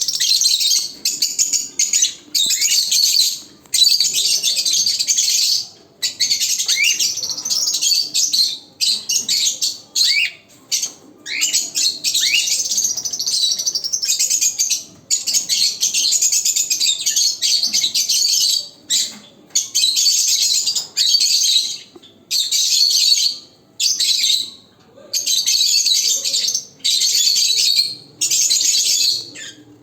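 A group of pet love birds, small parrots, chattering and screeching loudly and continuously. The calls come in dense bouts of one to three seconds, broken by short pauses.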